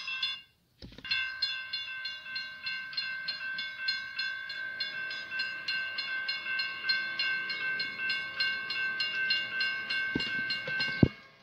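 Electronic model-train horn sound held in one long continuous blast, with a quick regular pulsing running through it. It stops near the end, just before a single sharp knock.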